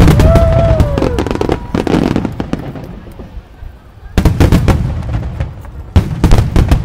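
Aerial firework shells bursting in volleys of booms and crackles: a dense barrage at first that dies away, then two more clusters of sharp bangs, about four and six seconds in.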